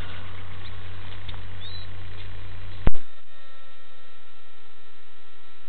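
Steady electrical hum on a sewer inspection camera's audio, broken by one loud click about three seconds in. After the click the hum is thinner, with faint steady tones and one tone slowly falling in pitch.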